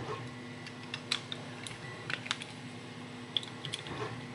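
Scattered light clicks and taps of small hand tools and a padlock being handled, about seven irregular clicks in all.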